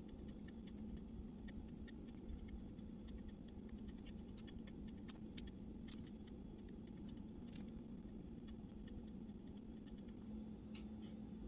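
Faint steady hum with scattered light ticks, from the SkyRC NC2500 Pro battery charger running a 2.5 A charge, its cooling fan turning.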